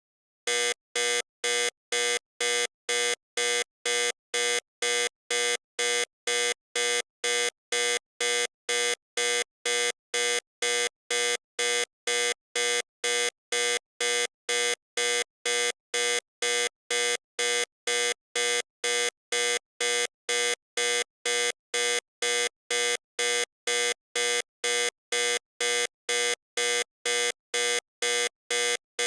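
Electronic warning buzzer beeping repeatedly in an even rhythm, about two to three short buzzy beeps a second, starting about half a second in. It is the kind of warning alarm heard from a cockpit or control panel.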